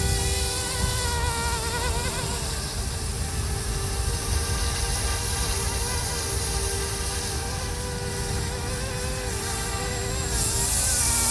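Electric rotors of a YU XIANG F119S MD500 scale RC helicopter in flight: a steady buzzing whine whose pitch wavers slightly as the motors adjust, over low wind rumble on the microphone.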